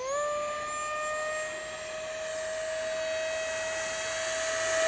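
The 70mm 12-blade electric ducted fan of an RC jet on 6S power, throttled up at the start into a steady high-pitched whine. The whine grows louder toward the end as the jet comes in on a fast pass.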